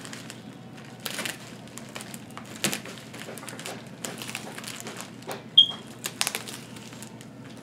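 A knife cutting and scraping through the plastic wrapping of a package, with crinkling plastic and irregular scratches and taps. A short, sharp high squeak comes about five and a half seconds in.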